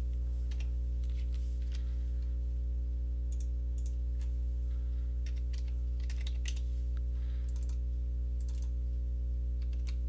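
Irregular keystrokes and clicks on a computer keyboard, over a steady low electrical hum that runs under everything.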